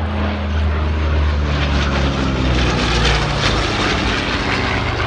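Propeller aircraft engines droning in a low flypast, the engine note falling in pitch as they pass.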